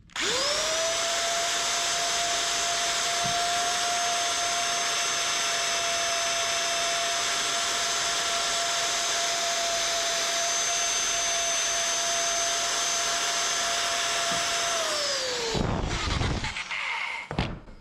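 Power tool fitted with a soft abrasive pad, run against a cymbal to scrub off tarnish. The motor spins up with a steady whine over a hiss and holds its speed for about fifteen seconds. It then winds down, falling in pitch, and is followed by brief handling noises.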